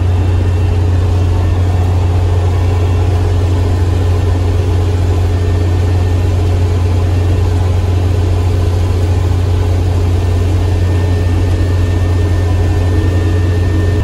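Kubota ER470 combine harvester's diesel engine and threshing machinery running steadily while harvesting rice, heard from inside the cab: a loud, even, low drone.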